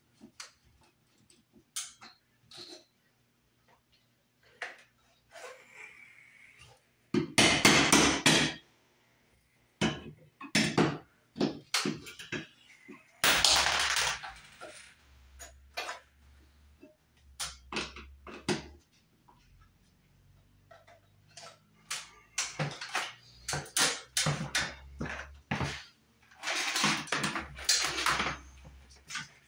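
Knocks, clicks and clatter of hand tools and wiring being handled, with several louder scraping or rustling bursts of a second or two.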